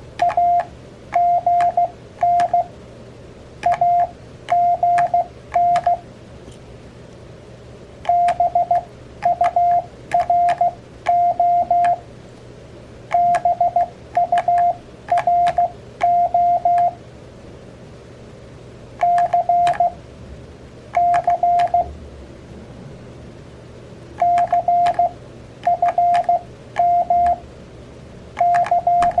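Morse code (CW) sidetone from an Elecraft KX3 transceiver, keyed with its KXPD3 paddle: a steady single-pitch beep broken into dots and dashes. The beeps come in short groups, each a common CW abbreviation, with pauses of a second or two between them.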